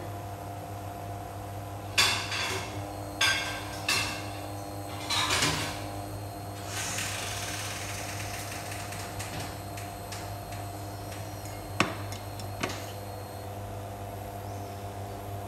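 Steady electrical hum of an electric cooktop heating a pot of water, with several sharp, ringing metallic knocks about two to five seconds in and two short clicks near twelve seconds.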